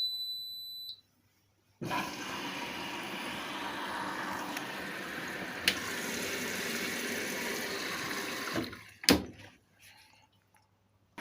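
Hotpoint washing machine gives a single high beep lasting about a second as it is started. After a short gap, water rushes steadily into the machine as it begins filling, with a sharp click midway and a brief knock near the end.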